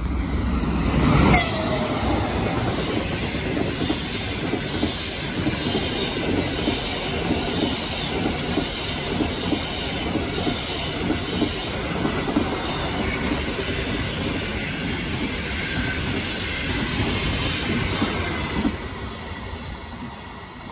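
A dual-system EP20 electric locomotive passes close by at speed: a loud rush about a second in, its pitch falling as it goes by. Then the passenger coaches roll past with a rhythmic clickety-clack of wheels over the rail joints, until the tail of the train passes near the end and the sound drops away.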